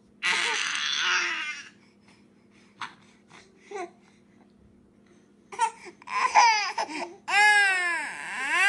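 A baby crying: a short breathy outburst near the start, a few small sounds, then from about halfway loud wailing cries that rise and fall in pitch.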